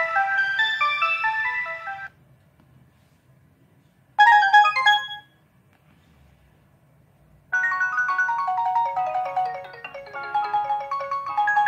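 Samsung polyphonic ringtones played on a ZTE Z222 phone. A quick melody of short synthesized notes stops about two seconds in, and a brief chime of a few notes sounds about four seconds in. After a pause, a new ringtone melody starts near the middle.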